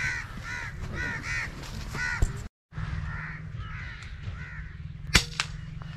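Crows cawing over and over, with the audio cutting out for a moment about two and a half seconds in; a steady low rumble runs underneath. A single sharp crack sounds about five seconds in.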